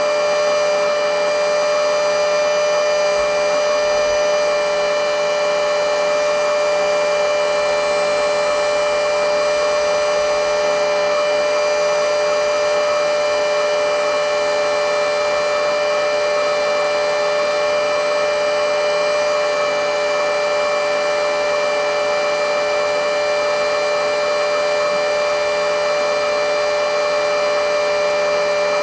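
Battery-powered mini handheld blowing/sucking vacuum cleaner (XCQ-508) running continuously with a loud, steady high-pitched motor whine. The battery is well into its run, past the point where the motor starts losing power.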